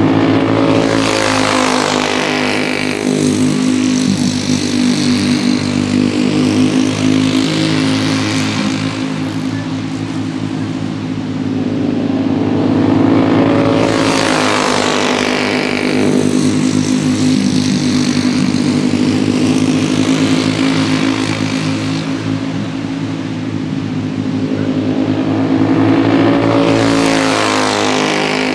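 Racing karts' small engines running flat out around an oval, a steady engine note throughout, swelling up and falling away three times as the karts pass close by, about every 13 to 14 seconds.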